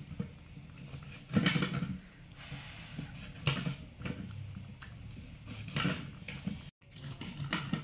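Kitchen knife slicing a sausage on a plastic cutting board, the blade knocking the board a few times, roughly two seconds apart.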